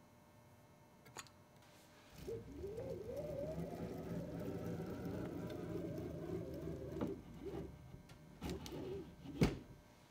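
Ball screw of a CNC's Y axis turned by hand, the freshly cleaned and oiled ball nut rolling along it with a wavering whirr that rises and falls in pitch for about five seconds. A few shorter whirs follow, then a sharp click near the end.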